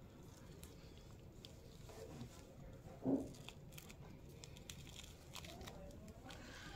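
Faint crinkling and small clicks of a clear plastic adhesive dressing being peeled loose by gloved hands from the tubing over a chest port.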